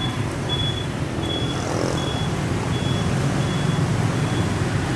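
Steady low rumble of street traffic, with a high electronic beep repeating about every 0.7 s, growing fainter and stopping near the end.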